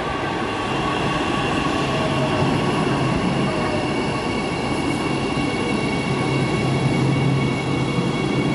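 LRT Jakarta light-rail train pulling into the station and slowing to a stop, a low running rumble under a steady high whine.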